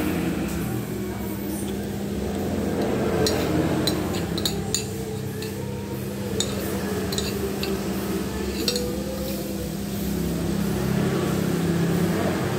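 Metal spoon and fork clinking and scraping against a glass plate of fried rice, in scattered irregular clicks. A steady low hum runs underneath.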